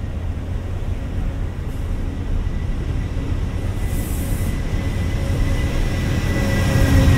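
Passenger coaches of a CT Rail train rolling slowly past with a steady low rumble and a faint thin whine. It grows louder toward the end as the diesel locomotive at the tail of the train draws near.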